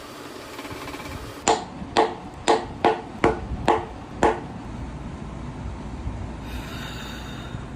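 Seven quick hammer strikes, about two a second, each with a short ringing note.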